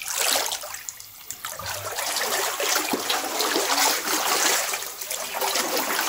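Water running and splashing: a sudden start, a short dip, then a steady rush from about a second and a half in.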